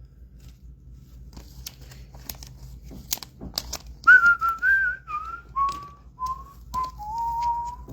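A person whistling a short tune of several notes that step down in pitch and end on a longer held note. Before it come a few seconds of soft clicks and crinkles from trading card packs and cards being handled.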